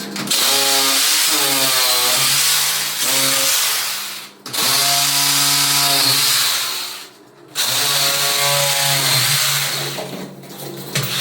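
Electric power tool running in three bursts, its motor whine rising and falling in pitch under the trigger and load, with short stops about four and seven seconds in.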